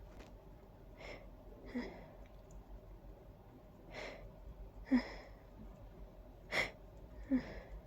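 A person with a stuffy, allergy-congested nose breathing in the build-up of a sneezing fit: three times a sharp, breathy intake, each followed by a short voiced breath out.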